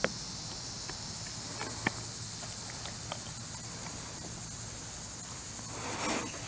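Steady high-pitched insect chorus. A sharp click comes right at the start and another about two seconds in, and a brief rushing swell comes near the end.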